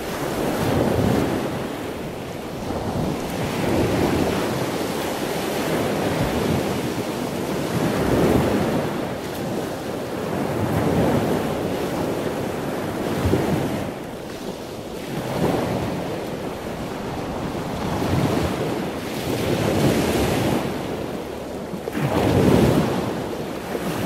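Loud ocean waves breaking and washing, swelling and falling every few seconds.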